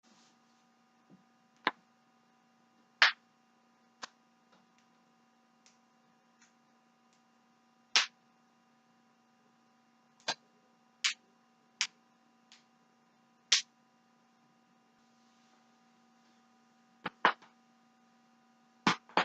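Joints cracking: about a dozen sharp pops at irregular intervals, some just a fraction of a second apart, with fainter clicks between, over a steady faint hum.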